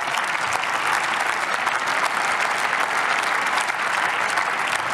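Members of parliament applauding: many people clapping steadily.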